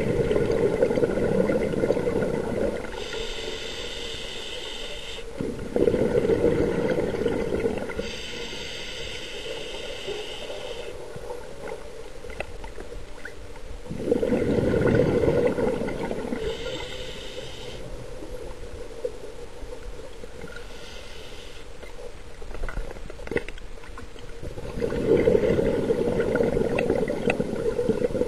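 Scuba diver breathing through a regulator underwater: a hissing inhalation through the demand valve alternates with a rumbling, bubbling burst of exhaled air, in a slow, irregular cycle several seconds long.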